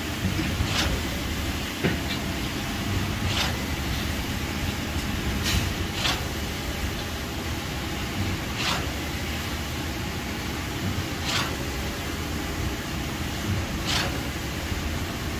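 A machine engine running steadily, with short sharp swishes breaking in at uneven intervals of one to three seconds.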